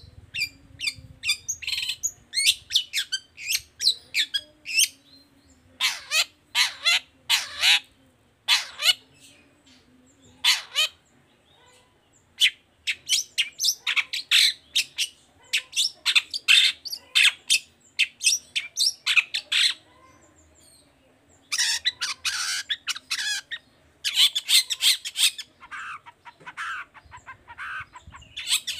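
Long-tailed shrike singing in bursts of rapid, harsh chattering notes, each run lasting a few seconds with short pauses between.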